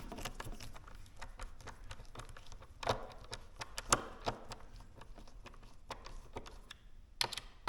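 Irregular small clicks and taps of a hand screwdriver working tight, slightly stripped screws out of a metal cabinet-door hinge, with a couple of sharper knocks about three and four seconds in.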